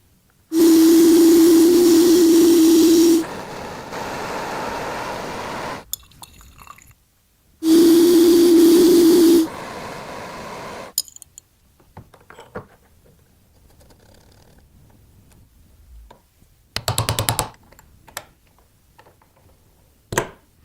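A small power tool's motor running in two bursts of a couple of seconds each, a steady whine over a hiss, each followed by a quieter hissing stretch; then scattered small clicks and a short rattle near the end.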